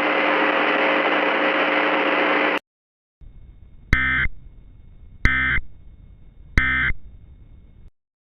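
A steady static hiss with faint tones cuts off suddenly about two and a half seconds in. After a moment's silence come three short, harsh digital data bursts about 1.3 seconds apart: the Emergency Alert System End-of-Message (EOM) tones, which signal that the alert is over.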